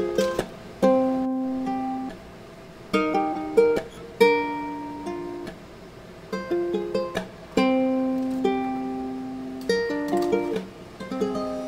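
Background music: a plucked-string melody, single picked notes that each ring and fade, with short pauses between phrases.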